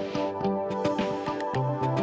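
Background music with a steady beat: an electronic track with a repeating bass line and regular percussion.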